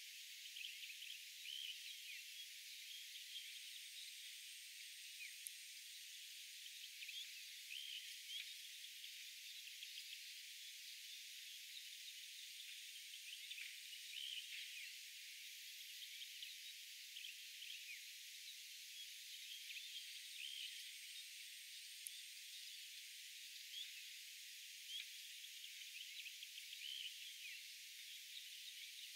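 Faint outdoor nature ambience: many small, high wildlife chirps over a steady hiss, with a thin, high, steady buzz that comes in twice for about two seconds each.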